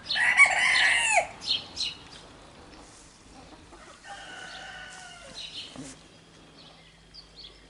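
Chickens calling: a loud clucking call in the first second, then a fainter, longer held call about four seconds in, with small birds chirping.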